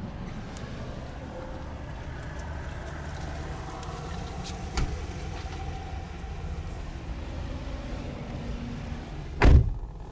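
A steady low rumble heard from inside a parked car, with a faint click about five seconds in and a loud, heavy thump near the end, in keeping with a vehicle door shutting.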